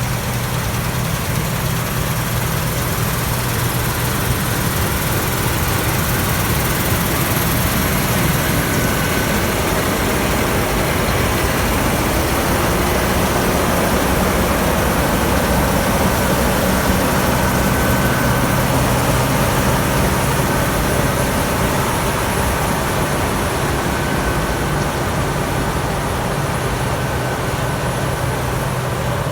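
Claas Lexion 780 combine harvester running steadily, a constant engine drone with a faint high whine that comes and goes.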